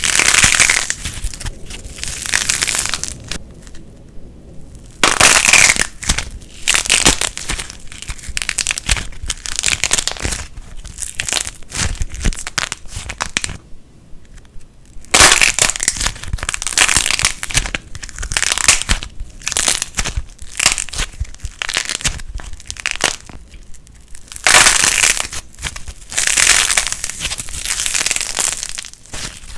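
Light plasticine being squeezed and worked by hand, giving dense crackling and crunching in bursts of a few seconds, with two short pauses.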